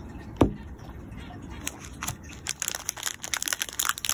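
A single loud knock about half a second in, as of a hard object set down on the table. Then, from about two seconds in, plastic packaging crinkling in a fast, busy run of crackles.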